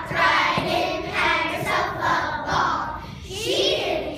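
A group of young children singing together, phrase after phrase in a steady pulse.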